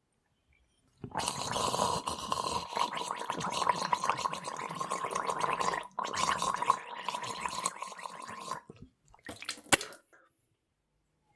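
A person gargling: a throaty bubbling over a steady hum, starting about a second in, with a brief break near the six-second mark. It trails off into a few short splutters and a sharp click.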